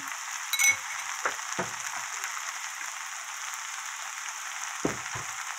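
Stir-fry of fish cake and aged kimchi sizzling steadily in a frying pan, with a few knocks and clicks of the spatula as it is stirred, one about half a second in and a pair near the end.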